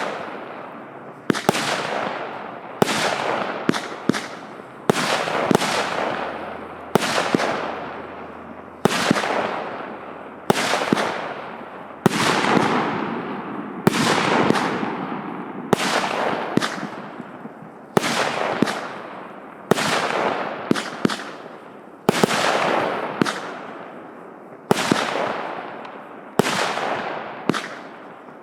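A 100-shot consumer firework cake of 0.8-inch tubes fires shot after shot, about one every one and a half to two seconds. Each shot is a sharp bang followed by a fading hiss as the peony star burst breaks.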